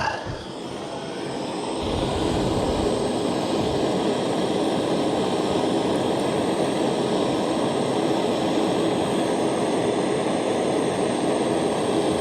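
Soldering torch flame burning steadily while it heats a solder joint, getting louder about two seconds in and then holding at an even level.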